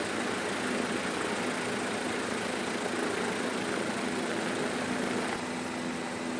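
Steady engine drone with a constant low hum, dropping slightly in level near the end.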